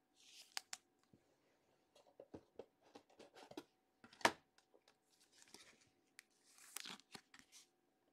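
Faint rustling and light clicks of baseball cards and clear plastic card sleeves being handled and sorted, with one sharper click about four seconds in.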